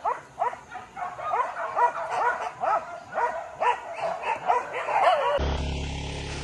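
Hunting dogs yelping excitedly in a rapid run of short, high-pitched cries, about four a second. A little over five seconds in, the yelping cuts off abruptly and a steady low hum takes over.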